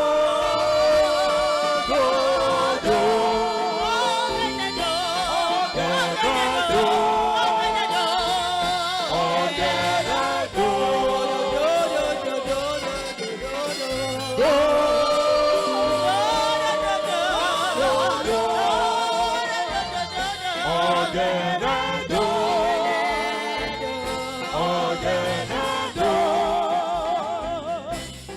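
Gospel music: sung voices holding long notes with wide vibrato over instrumental accompaniment, with no clear words. It fades near the end.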